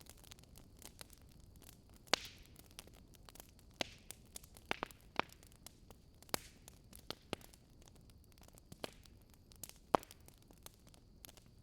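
Fire crackling: irregular pops and snaps over a soft hiss, with two sharper pops about two seconds in and near the end.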